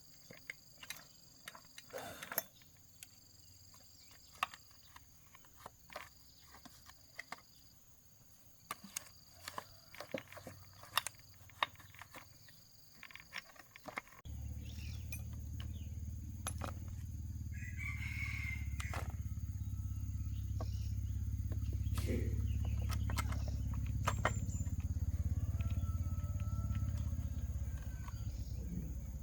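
Scattered clicks and knocks, then about halfway a steady low motor hum starts abruptly and runs on. A rooster crows over it.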